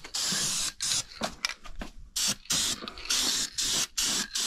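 Aerosol spray can of Duplicolor white engine enamel hissing in a quick series of short bursts as it is sprayed over a clear coat.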